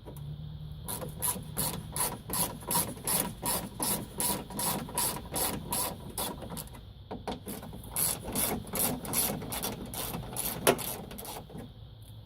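A 10mm ratchet wrench clicking in a steady run of strokes, about three clicks a second, as the bolts of the stock upper radiator mounts are backed out. There is a short pause around the middle and one sharper, louder click near the end.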